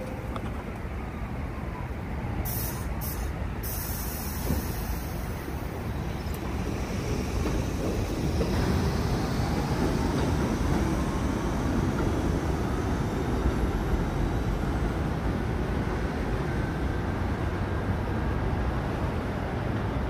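R62A subway train pulling out of the station: a short hiss of air about two and a half seconds in, then the traction motors whine, sliding in pitch, over the rumble of the wheels on the rails, getting louder about eight seconds in.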